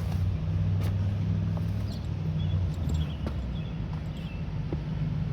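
A steady low mechanical hum, with a few faint clicks and light high chirps over it.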